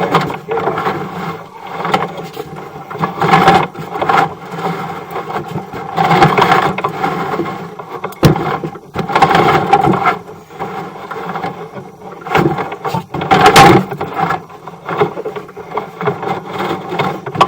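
Sewer inspection camera's push cable being fed along the mainline, scraping and rubbing in uneven bursts every few seconds.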